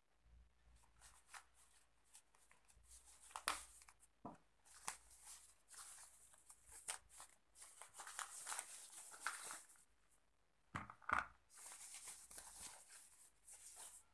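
Faint, irregular rustling and crinkling of a white wrapping sheet being pulled open by hand, with a couple of sharper crackles, one a few seconds in and another near the end.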